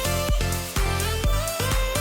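Background music with a steady beat and a held melody.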